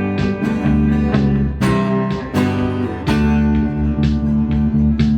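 Live band playing an instrumental break with no singing: strummed acoustic guitar chords over a bass line.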